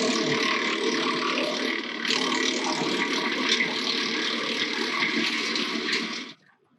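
Woodland Mills WC68 6-inch wood chipper running off a Ford 1920 tractor's PTO, chipping branches: a steady engine and rotor drone with rough crackling from the wood on top. The sound cuts off suddenly near the end.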